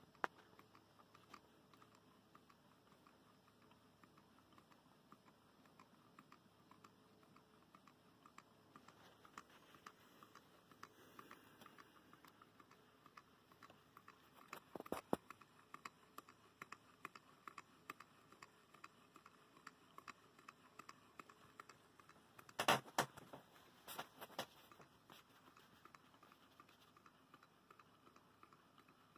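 Low-temperature-differential Stirling engine running at about 295 RPM, its moving parts giving faint, rapid, light ticking. Two short bursts of louder knocks come about halfway and three-quarters of the way through.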